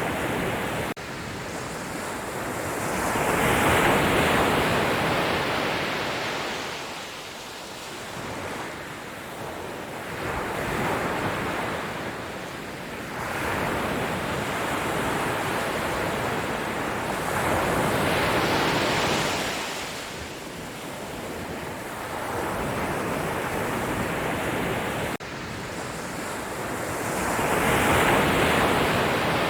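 Sea waves breaking and washing up the shore in slow surges, each swelling and fading over several seconds. Twice the level drops suddenly.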